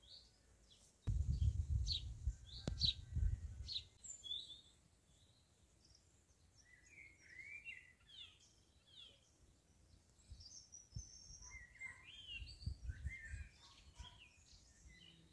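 Wild birds singing, many short chirps and trills overlapping, with two stretches of low rumbling, one about a second in and another near the end.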